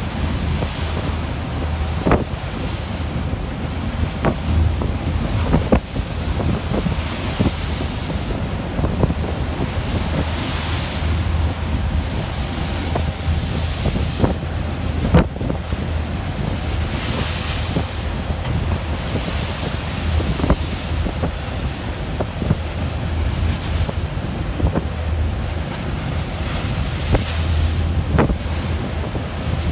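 Strong wind buffeting the microphone over a storm-tossed sea, with waves breaking and spray washing, and a steady low hum underneath. Now and then there is a sharp knock or slap.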